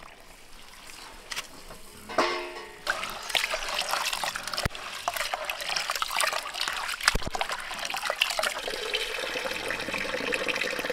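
Water from an outdoor tap running into an aluminium pot of maize grits, splashing and sloshing as the grits are rubbed and rinsed by hand, starting about two seconds in, with a couple of sharp knocks against the pot. Near the end the rinse water is poured from the pot into a bucket, a steadier pouring sound.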